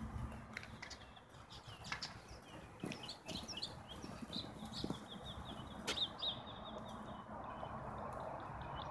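Faint outdoor ambience with a small bird chirping. Near the middle comes a run of quick repeated chirps, over a low steady rumble and a few light clicks.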